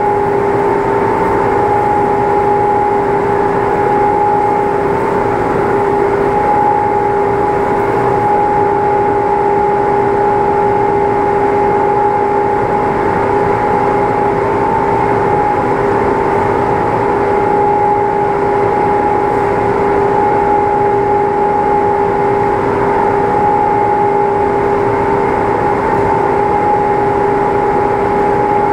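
A machine running steadily at constant speed, with an unchanging hum over a band of noise and no breaks or changes in pitch.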